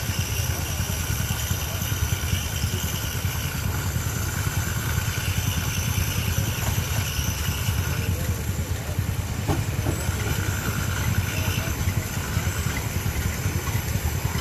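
1913 Aultman Taylor steam tractor driving a threshing machine through a long flat belt, engine and thresher running steadily under load with a dense, even low rumble of fast pulses.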